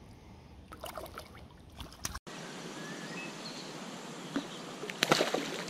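Short splashes in the water as a hooked tench is played on a pole, over a steady outdoor hiss that jumps louder about two seconds in.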